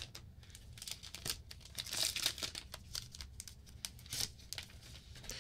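Thin plastic protective film being peeled off the back of a new iPad Air, crinkling and crackling irregularly, loudest about two seconds in.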